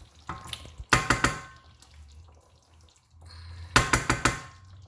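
A metal utensil knocked rapidly against a cooking pot in two quick bursts of several taps each, with a short metallic ring, as tomato puree is added to the simmering stew base.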